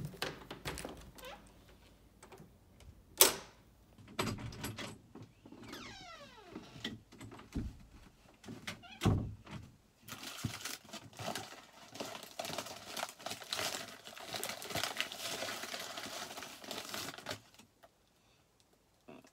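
Knocks and footstep-like thumps, with one sharp click about three seconds in and a heavier thump near the nine-second mark. From about ten seconds in comes about seven seconds of crinkling as plastic snack packaging is rummaged through, then it goes quiet.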